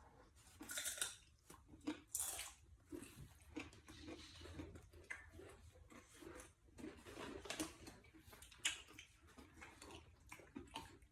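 A person chewing and crunching tortilla chips loaded with dip, close to the microphone: a run of irregular crisp crunches and chewing sounds.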